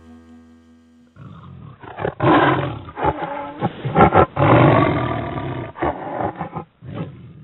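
Domestic cat purring close to the microphone: a loud, rough rumble that pulses unevenly, coming in about a second in as background music fades out.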